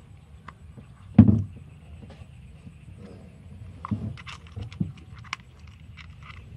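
Plastic toy train cars being handled and coupled together: scattered light clicks and knocks of hard plastic, with one louder dull knock about a second in.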